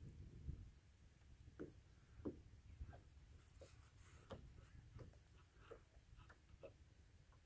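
Near silence, with faint, irregular light ticks and taps about one or two a second over a low rumble.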